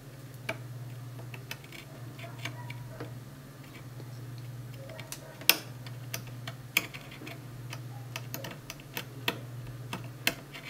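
Irregular light ticks and scratches of a sharp blade point working at the traces on an LCD panel's flex ribbon cable, cutting them to cure a double-image fault, with a sharper click about halfway through. A steady low hum runs underneath.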